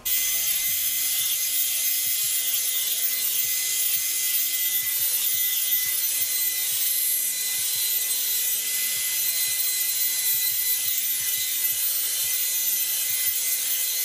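Revlon One-Step hair dryer and volumizer brush blowing on its cool setting: a steady rush of air with a thin high whine, as the brush is drawn through hair.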